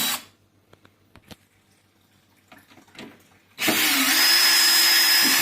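Cordless drill-driver backing out the screws around the outside of a coffee machine's casing. A short run cuts off just after the start and is followed by a few faint clicks. A steady run of about two seconds begins around three and a half seconds in.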